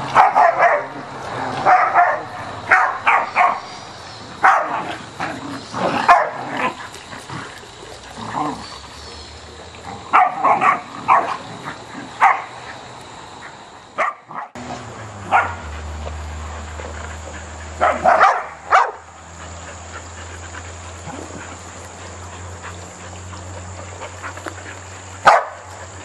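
Australian Shepherd dogs playing rough, with many short barks and yips in quick clusters. About halfway through, the calls thin out to a few scattered barks over a steady low hum.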